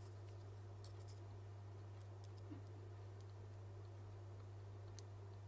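A few faint, sharp clicks of small repair tools working on an Apple Watch's internals, the clearest near the end, over a steady low hum.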